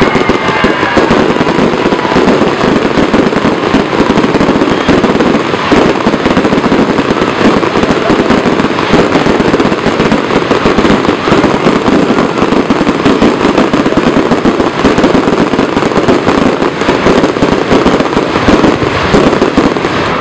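Fireworks going off in a dense, continuous run of rapid crackling pops, with no single big boom standing out.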